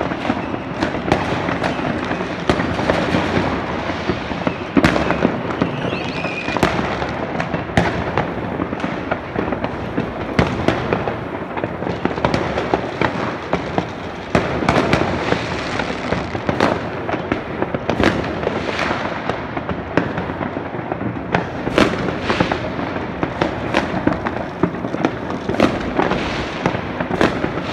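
New Year's fireworks and firecrackers going off all over a city at once: a continuous crackle with frequent sharp bangs, some near and some far, overlapping without pause. A brief whistle rises about six seconds in.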